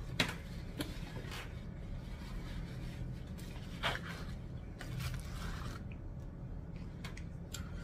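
Foil burger wrapper crinkling as it is handled, with a few sharp crackles and a longer rustle about five seconds in, along with chewing.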